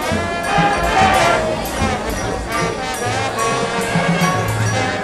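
High school marching band playing: brass chords over a steady beat of drum and cymbal strokes.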